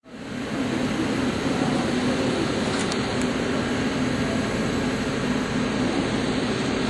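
Lathe grooving a 42CrMo4 steel workpiece with a Walter GX24 grooving insert at 120 m/min cutting speed and 0.2 mm/rev feed: a steady machining noise with a low hum underneath, rising in within the first half second.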